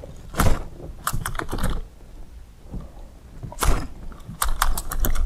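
Baitcasting reel and rod clicking in short, sharp clusters as a topwater lure is jerked and line is reeled in.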